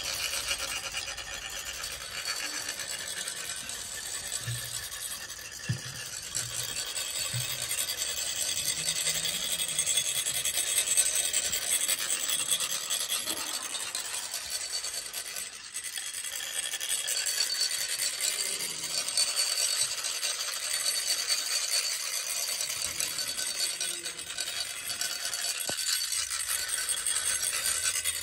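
Several chak-pur funnels being rasped at once: rods scraped along the funnels' ridged shafts in a steady, scratchy rasping that sets the coloured sand trickling out onto a sand mandala.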